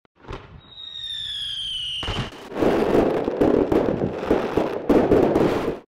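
Firework sound: a short whoosh, then a whistle sliding slowly down in pitch for about a second and a half, then a dense run of crackling and bangs lasting about three and a half seconds that cuts off suddenly.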